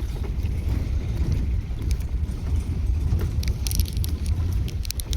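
Open Maruti Gypsy safari jeep driving on a dirt forest track: a steady low engine and road rumble, with light rattles and clicks from the vehicle.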